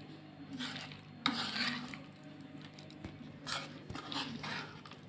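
A spoon stirring raw prawns through a thick, wet spice-and-flour marinade in a bowl, in several irregular scraping strokes, with a sharp knock of the spoon against the bowl about a second in.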